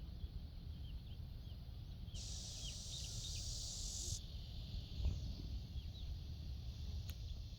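Outdoor nature ambience: a steady low rumble like wind on the microphone, a high insect buzz that comes in for about two seconds near the middle, and scattered small, quick chirps.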